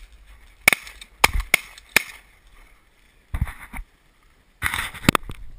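Shotgun blasts fired at ducks overhead: four sharp shots in quick succession within about a second and a half. Then come two longer bursts of rough noise, the second ending in another sharp crack.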